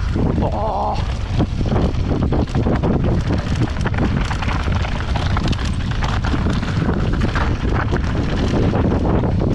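Mountain bike descending a rough trail at speed: wind rushing over the action camera's microphone, with tyres on loose dirt and the bike's chain and frame rattling in many short knocks over bumps.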